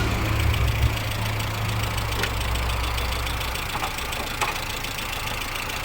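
Lada Priora's 16-valve engine idling steadily, with a light, regular ticking from the hydraulic valve lifters. The lifters are still knocking, though only slightly, after a Liqui Moly lifter-noise additive has gone into the oil.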